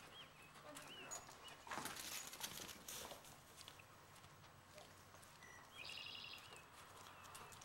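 Very quiet: faint footsteps on concrete as a person walks with a dog at heel, and a short high warbling call about six seconds in.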